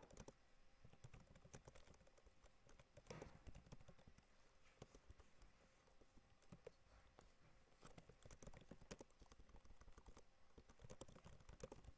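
Computer keyboard being typed on: faint, irregular key clicks.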